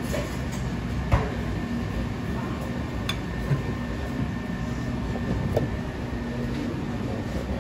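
Steady machine drone in a commercial kitchen, with a few light knocks and clinks of ceramic bowls and plates being handled on the counter, the sharpest about a second in.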